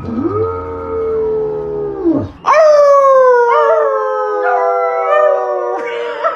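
A dog howling: two long howls. The first is held fairly level for about two seconds; the second is louder, starts higher and slides slowly down over more than three seconds.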